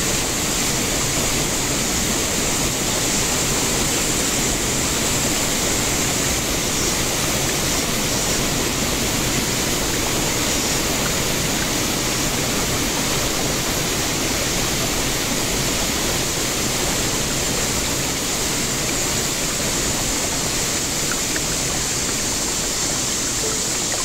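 Steady rush of shallow river water flowing and rippling.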